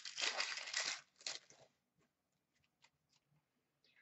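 An Upper Deck hockey card pack's wrapper crinkling as it is torn open, a noisy rustle lasting about a second and a half. After it come a few faint ticks.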